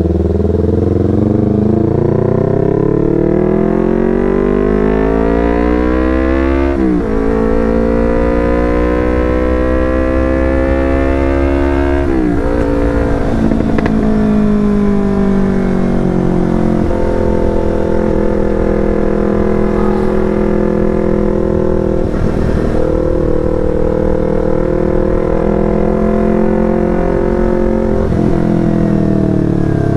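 Yamaha R25 parallel-twin engine through a Proliner TR1R short aftermarket exhaust, accelerating with rising pitch through two gear changes, about seven and twelve seconds in. It then holds a steady speed, and the pitch falls as it slows near the end.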